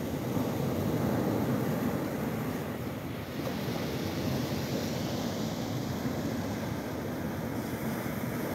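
Ocean surf breaking and washing up onto a sandy beach: a steady low rush of waves that swells slightly about a second in.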